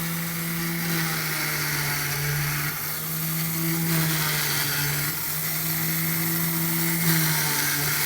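Small electric motor of a homemade micro drilling machine running steadily with a hum and hiss. Its pitch shifts slightly a few times, as under changing load.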